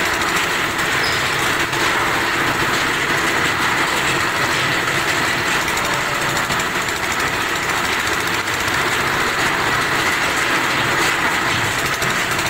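Stationary engine of a concrete mixer running steadily at a fast, even beat, with the clatter of the mixer machinery.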